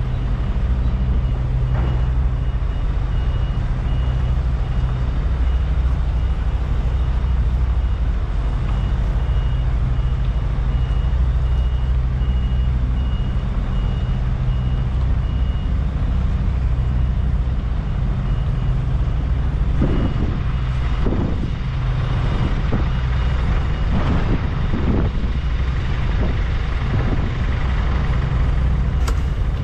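Heavy truck's diesel engine running steadily at low speed while reversing, with a reversing alarm beeping at an even rate over it. The beeping fades out about halfway through, and several short rushing sounds come and go a few seconds later.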